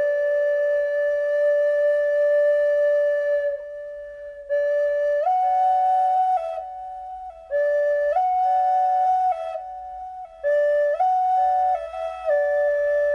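Solo flute playing a slow melody: a long held note, a short pause, then phrases stepping up and down between a few close notes with brief breaks between them, and another long held note near the end.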